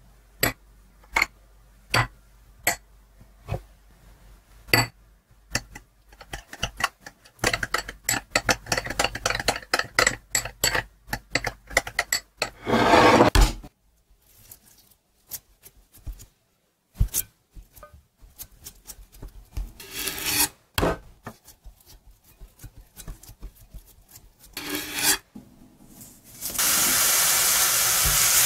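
A metal spoon stirs and scrapes a thick cream cheese and truffle sauce in a small glass bowl: a dense, wet scraping with clinks, amid scattered sharp taps. Near the end a steady, loud sizzle of frying starts.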